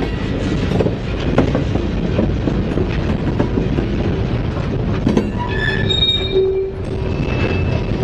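Freight cars of a Norfolk Southern train rolling past close by: a steady rumble with the clatter of wheels on the rail. From about five seconds in, high-pitched metallic squealing from the wheels comes in, several tones at once.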